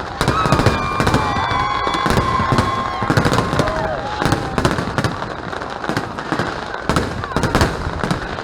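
Fireworks going off in quick succession, a steady run of bangs and crackles. Over the first few seconds a held whistling tone sounds above them and drops in pitch as it ends, about four seconds in.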